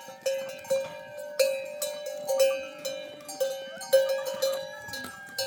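A metal livestock bell clanking irregularly, about two or three strikes a second, each strike ringing at the same pitch.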